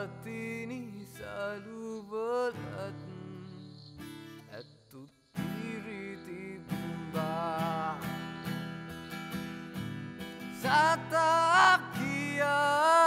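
Acoustic guitar played with a voice singing a wavering melody over it, with a short break about five seconds in.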